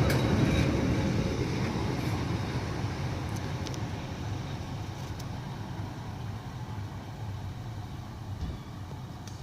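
Class 150 Sprinter and Class 153 diesel multiple units running on their underfloor diesel engines, a steady low rumble that slowly fades away.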